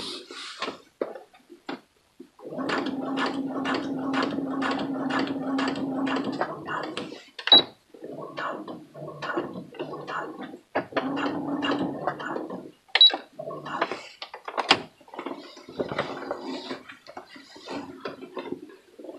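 Electric sewing machine stitching slowly in stop-and-start runs, its needle strokes clicking about three times a second over the motor's hum, as it sews carefully across a pants zipper.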